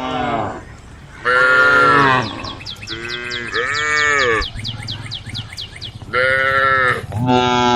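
Cattle mooing: about six short calls in a row, each under a second, some rising and falling in pitch.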